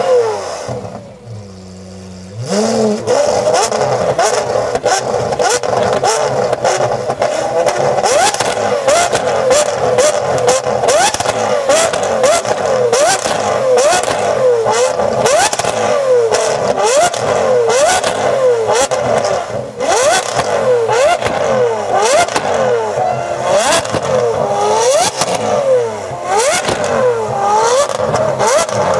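Supercar engine revved hard again and again in quick blips after a short lull at the start, its pitch rising and falling about once a second. Sharp exhaust pops and bangs crackle between the revs, the backfires that throw flames from the exhaust.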